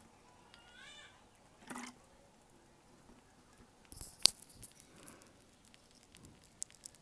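Faint crackling of popping candy in the mouth: scattered small clicks, with one sharp click about four seconds in. A cat meows once, about a second in.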